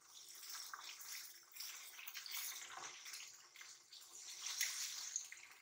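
Chicken pieces sizzling in hot oil in a karahi: a faint, steady hiss of frying with scattered small crackles.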